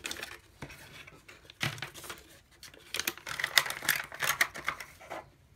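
Hands handling a small cardboard box and its paper insert: irregular light clicks, taps and rustles of card and paper, busiest in the second half.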